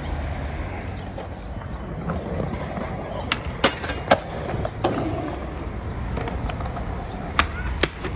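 Skateboard wheels rolling over concrete, with several sharp clacks of the board on the ground. Near the end the board slides onto a metal handrail.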